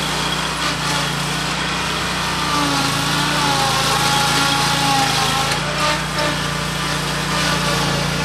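Zero-turn riding mower running steadily while it drives across a steep side slope, with a whine above the engine that rises and falls in pitch as it manoeuvres.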